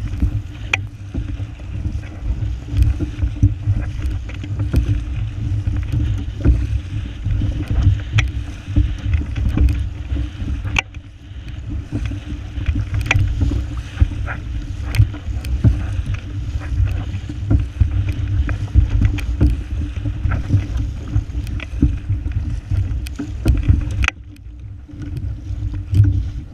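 A sit-on-top kayak being paddled through choppy sea: double-bladed paddle strokes dip and splash, with irregular short knocks and splashes. A heavy low rumble runs under them and drops away sharply near the end.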